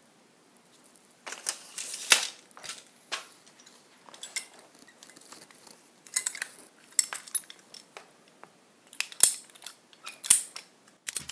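Handheld ratcheting PVC pipe cutter clicking and crunching through half-inch PVC drain pipe, a series of sharp, irregular clicks and snaps.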